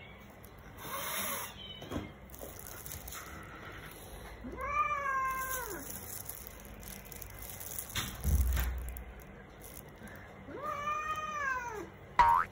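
Domestic cat meowing twice, each a drawn-out call that rises and then falls in pitch, several seconds apart. Near the end comes a short, sharp metallic clink, the loudest sound.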